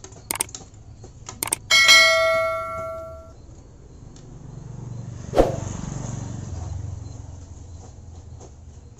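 A few light clicks of parts being handled, then a loud clang of a small metal object striking a hard surface about two seconds in, ringing for a second or so before dying away. A single knock follows a few seconds later.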